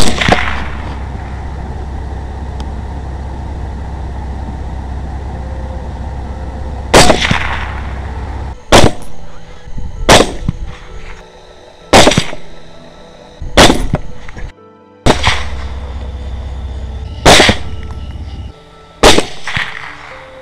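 Rifle shots fired at feral hogs: about eight sharp cracks, each with a short ringing tail. One comes right at the start, then the rest follow from about seven seconds in, roughly every one and a half to two seconds.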